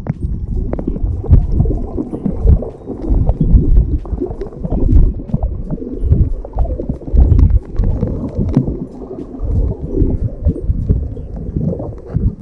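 Water churning and gurgling against an underwater camera, heard as a muffled, uneven low rumble with a few small knocks.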